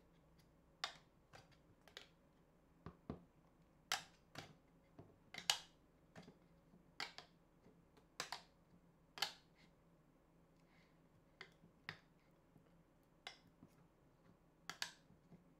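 Irregular sharp clicks and taps, roughly one or two a second and some in quick pairs, from fingers handling an LED tube light at its black end cap and plastic tube.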